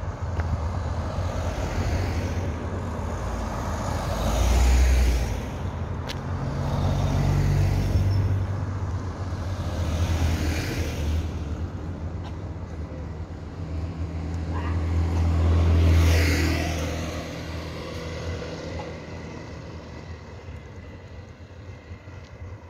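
Cars driving past one after another on a road, each swelling and then fading away as it goes by: about four pass-bys, the loudest about 5 and 16 seconds in, with the traffic dying down near the end.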